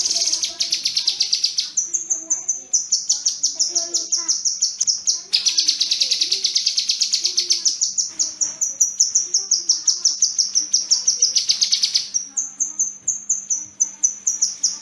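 Kinoi bird singing: long runs of rapid, evenly repeated high notes broken by short pauses, the long 'shooting' trills prized in masteran recordings, with softer lower warbling notes beneath.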